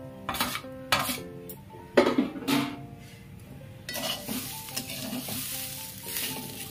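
Fried potato pieces tipped from a metal bowl into a wok of frying rice, with a few sharp knocks of the bowl and spatula against the pan, the loudest about two seconds in. From about four seconds in, a spatula stirs and scrapes the rice in the wok with a light sizzle.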